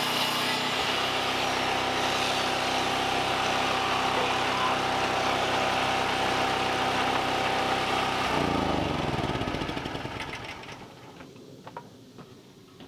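Small engine running steadily at idle, then shut off about eight seconds in, its pitch falling as it winds down over a couple of seconds. A few faint knocks of wood being handled follow.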